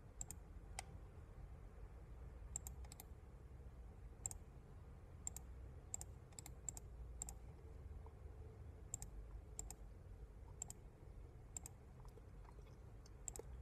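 Faint computer mouse clicks at an irregular pace, roughly one or two a second, over a low steady room hum.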